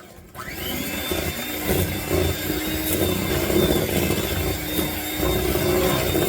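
Electric hand mixer switched on about half a second in, its motor rising quickly to speed and then running steadily with a constant whine as the beaters mix cake batter.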